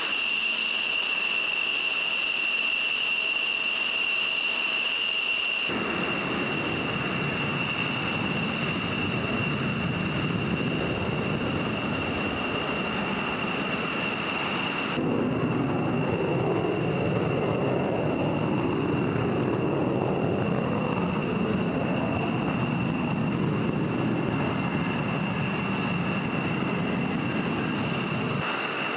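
Jet aircraft turbine whine: a steady high-pitched tone over a low engine rush. The low rush steps up abruptly about six seconds in and again near fifteen seconds.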